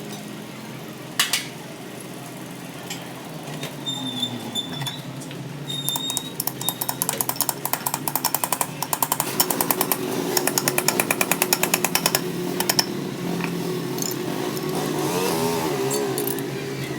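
Rapid mechanical hammering, about eight strokes a second for several seconds in the middle, over a steady machine hum, with a single sharp knock about a second in.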